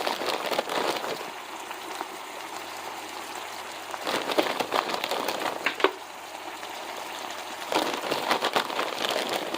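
Ground beef frying in a pan: a steady sizzle that crackles louder three times as frozen chopped peppers and onions go in.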